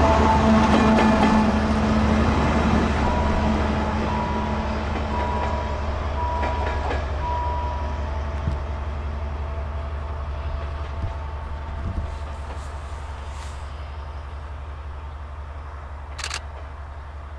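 Dr20 diesel locomotive's engine running steadily as it passes and moves away, its low drone fading throughout. A few faint clicks of the wheels over rail joints come along the way.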